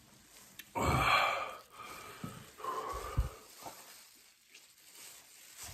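A man's loud, wheezing breath about a second in, then quieter breathing, as he reacts to the burn of an extremely hot pepper-extract sauce.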